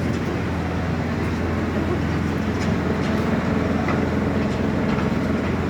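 Demolition excavator's diesel engine running steadily with a low drone, with a few faint knocks.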